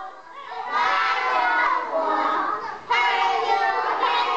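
A group of children's voices singing together. They start up under a second in and pause briefly just before three seconds in.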